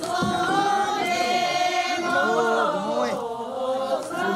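A group of voices singing together without instruments, in long held lines: a Sherpa shyabru song.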